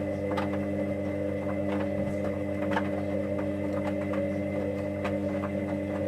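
Hoover Dynamic Next washing machine running its Baby 60°C programme in the sensing stage: the drum motor hums steadily with a pitched whine, with a few faint irregular clicks.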